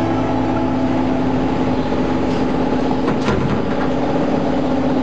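Steady machine hum with a strong, even low tone. A brief sharp hiss comes about three seconds in.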